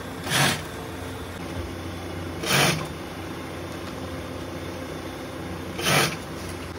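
Industrial post-bed sewing machine stitching sandal straps in three short bursts, about half a second in, at about two and a half seconds, and near six seconds, over a steady low hum.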